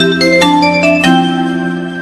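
Sony Ericsson phone ringtone: a bright marimba-like melody of quick struck notes over a held chord, with the chord changing about a second in.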